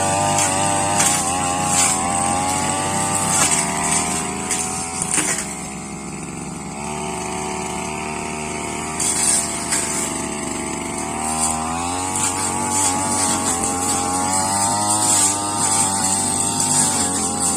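Brush cutter engine running at high revs while cutting, its speed wavering under load, with short sharp clicks from the blade. About a third of the way through the engine falls to a lower speed for several seconds, then revs up again.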